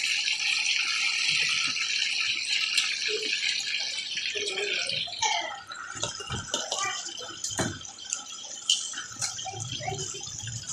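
Chicken pieces deep-frying in hot oil in a metal karahi, a dense steady sizzle with scattered crackles and the odd knock of the metal slotted spoon against the pan. The sizzle is strongest at first and eases after about five seconds.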